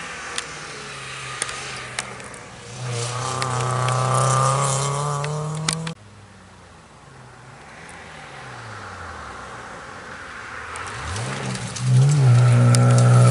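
Rally car engines at full throttle. One car approaches, its engine note growing loud until it cuts off abruptly about six seconds in. Then a BMW E30 rally car is heard faintly, rising in pitch and loudness, and it passes close at high revs near the end.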